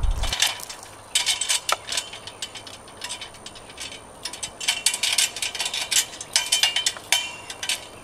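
Irregular clusters of sharp metallic clicks and clinks from climbing gear and a metal ladder as someone climbs it.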